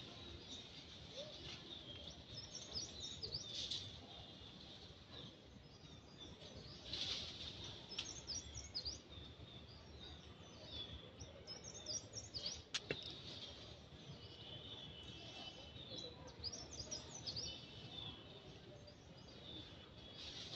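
Faint forest birdsong: small birds chirping short high notes, some in quick runs, over a low background hiss, with two sharp clicks about eight and thirteen seconds in.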